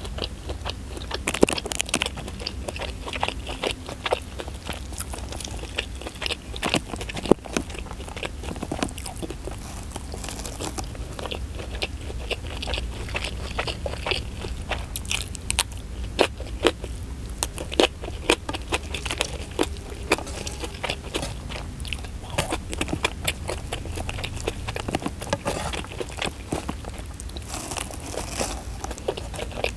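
Close-miked eating: chewing and biting rice with omelette and sambal matah eaten by hand, with irregular crunches and wet mouth clicks throughout.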